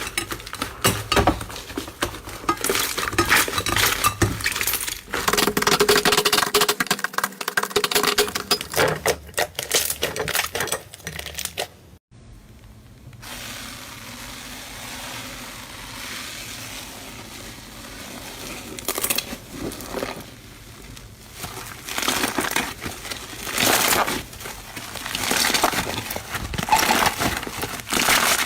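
Slime being squeezed and kneaded by hand, giving dense crackling, clicking and popping. It breaks off suddenly about twelve seconds in, goes softer for a while, then crackles in bursts again toward the end.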